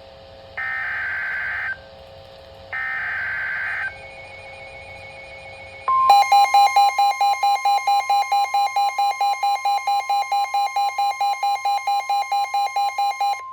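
Emergency Alert System SAME header data: two screeching digital bursts of about a second each. About six seconds in, a NOAA Weather Radio warning alarm tone starts, with a fast beep pulsing about five times a second on top of it. This signals that a new warning is about to be read.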